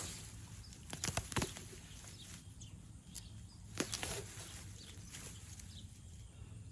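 Faint rustling with a few sharp clicks or knocks, a cluster about a second in and a single louder one near four seconds.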